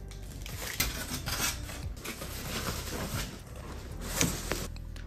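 Packaging being handled during an unboxing: continuous rubbing and scraping with a few sharp knocks. Near the end it cuts to background music.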